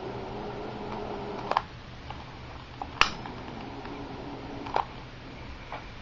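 Small handheld butane torch hissing as it heats heat-shrink tubing over soldered wire joints. Three sharp clicks come about a second and a half in, at three seconds and near five seconds, the one at three seconds the loudest.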